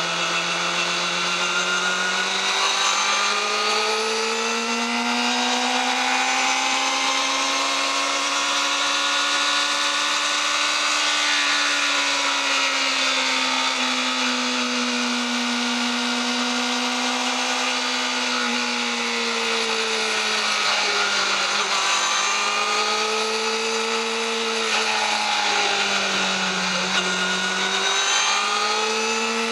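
Yamaha YZF-R6 inline-four engine running on its stock exhaust at sustained high revs, a high-pitched note that climbs slowly over the first ten seconds, eases back, then rises and dips again a few times near the end.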